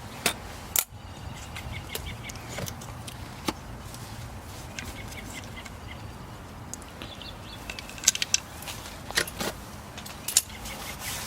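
Scattered sharp clicks and clacks of parts of an airsoft MK18 rifle being handled and taken apart by hand, with a cluster of several near the end. A steady low hum runs underneath.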